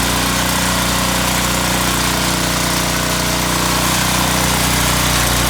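Coleman portable generator's Tecumseh engine running at a steady speed, freshly started.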